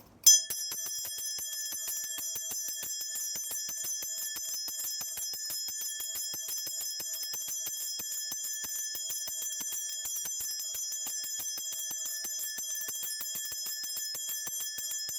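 Korean shaman's ritual bells (a cluster of small brass bells on a handle) shaken continuously, giving a steady, rapid jingling with a bright ringing tone. This is the kind of bell-shaking used to call the spirits during a spirit reading.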